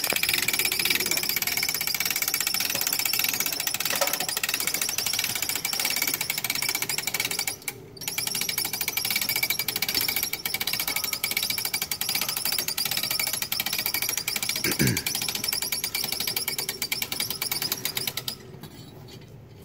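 Hand-held power tool running with a rapid hammering clatter as it drives the hoist that lifts a hog carcass. It cuts out briefly about eight seconds in and stops near the end.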